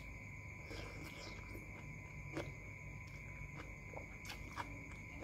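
Close-up eating sounds: a spoonful of noodles slurped about a second in, then chewing with a few sharp clicks of spoon and mouth. Behind them runs a steady high tone.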